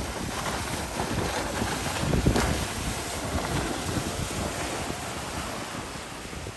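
Wind buffeting the microphone over the rush of spray and wake from a speedboat hull planing across choppy water, gusting louder about two seconds in and easing a little near the end. There is no engine note: the boat is driven by an electric outboard.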